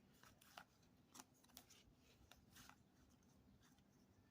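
Near silence, with faint scattered clicks and rustles of trading cards being handled and flipped through a stack.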